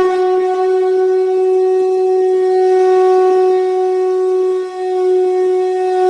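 A wind instrument holding one loud, steady note, with a brief dip near five seconds in as if for a breath.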